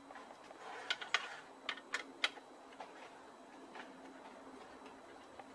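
A handful of sharp metallic clicks and clinks from the motorcycle's rear rack mounting bolts, their fitting and hand tools being handled as the bolts are taken out, bunched in the first half and loudest about two seconds in.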